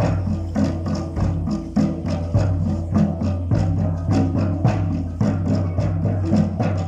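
Percussion music: a quick steady beat of hand drums and woodblock-like strikes over a low held drone.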